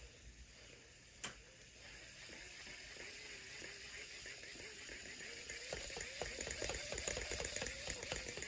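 Shimano 23 Calcutta Conquest MD baitcasting reel: a single click about a second in, then the handle being cranked, a fine rapid whir of gear ticks that grows louder toward the end.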